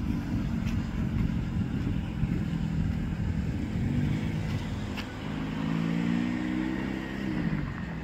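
Volkswagen Passat 1.8 TSI turbocharged four-cylinder with a custom exhaust, driving: a deep exhaust note that rises in pitch as the car accelerates about five seconds in, then drops near the end.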